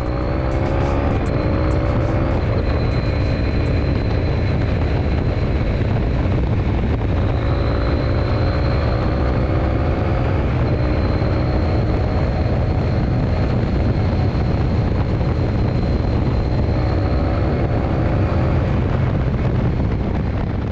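Engrich ART 1200cc 360° parallel-twin motorcycle engine running steadily under way, its pitch climbing slowly in a few long stretches as the bike pulls.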